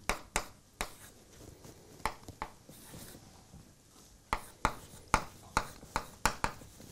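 Chalk tapping on a blackboard while a formula is written: a dozen or so sharp taps, a few scattered at first, then a quicker run from about four seconds in.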